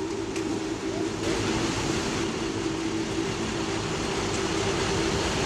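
Steady motor hum and traffic noise around a filling station, growing a little louder about a second in.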